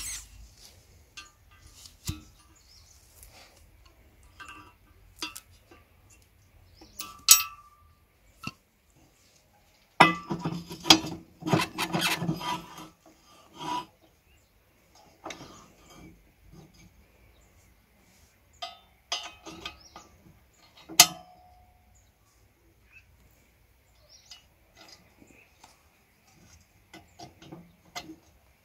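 Steel lug wheel being worked onto the axle hub of a Salyut 100 walk-behind tractor by hand: scattered metal clinks, scrapes and knocks, busiest about ten seconds in, with two sharper ringing clinks of metal on metal.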